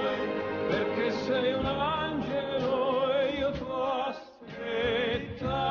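Music with a singing voice sung with vibrato, dropping out briefly about four seconds in before picking up again.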